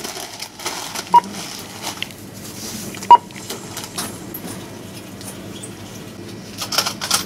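Two short, single-pitch beeps from a supermarket checkout's barcode scanner, about two seconds apart, as items are rung up. Under them is steady shop background, with a few clicks and rustles near the end.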